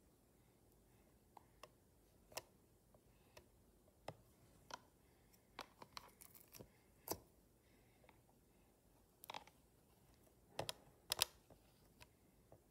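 Light, irregular clicks and taps of a small plastic applicator scraping and tapping in a pigment palette and against a plastic tub of slime, with a few louder taps close together near the end.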